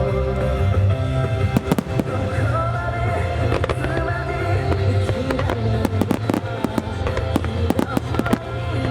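Fireworks bursting and crackling over a music soundtrack, the bursts scattered at first and coming thick and fast from about five and a half seconds in.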